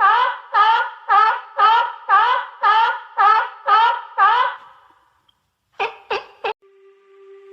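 An animal calling: a steady run of about nine loud calls, two a second, each sweeping up in pitch, then three short sharp calls about six seconds in.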